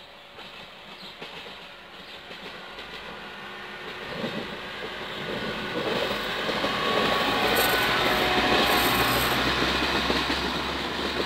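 Passenger train passing: the rumble of wheels on rail grows louder as it approaches, is loudest about seven to ten seconds in, then starts to fade as it goes by.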